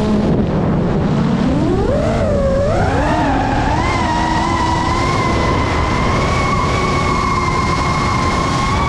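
FPV quadcopter's brushless motors and propellers whining with throttle: the pitch sits low at the start as the drone dives, climbs with wobbles over the next few seconds as throttle is added, then holds a steady high whine.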